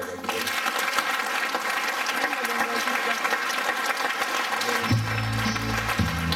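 Audience applauding, then about five seconds in dance music with a deep, steady bass line comes in.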